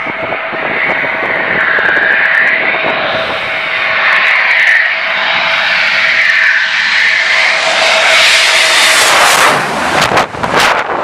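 Eurofighter Typhoon's twin turbofan jet engines on landing approach: a steady whine with one held tone that grows louder as the jet comes in low. About nine seconds in the sound turns harsher and brighter as the jet passes overhead.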